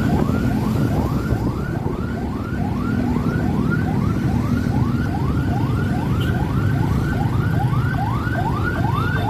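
Electronic siren in yelp mode: a quick rising whoop repeated about three times a second without a break, over the low rumble of traffic and engines.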